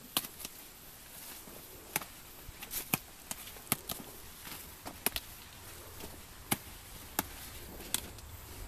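Irregular sharp snaps, about one or two a second, of tobacco stalks being topped: the flowering tops are broken off by hand.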